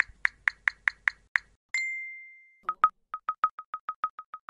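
Animated intro sound effects: a run of short typing clicks, about five a second, then a single bright ding that rings and fades over about a second, then a rapid string of short high pops, about six a second.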